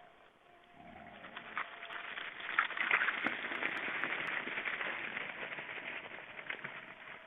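Wild boars crunching and trampling at a feeder: a dense crackling noise full of small clicks that builds about a second in, is loudest around the middle and fades near the end.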